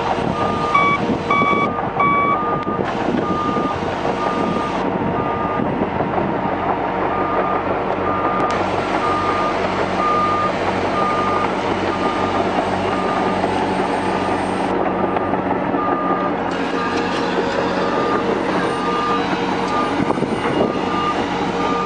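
Reversing alarm on a heavy construction vehicle beeping steadily at a little more than one beep a second over the machine's running engine.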